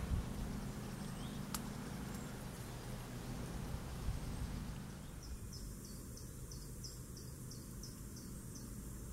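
Faint outdoor ambience with a steady low rumble. From about five seconds in, a short, high, falling chirp repeats about three times a second.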